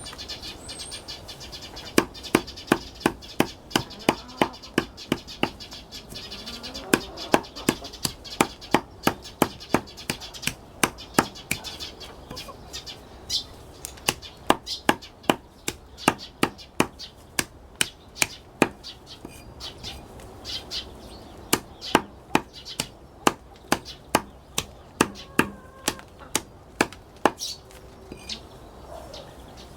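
Repeated sharp knocks, about two to three a second in an uneven rhythm, with faint bird chirps behind them.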